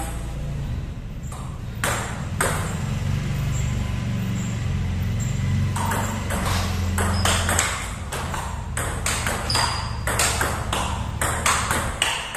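Celluloid/plastic table tennis ball clicking off paddles and the table. There are a few hits about two seconds in, then a quick run of sharp clicks through the second half, over a steady low hum.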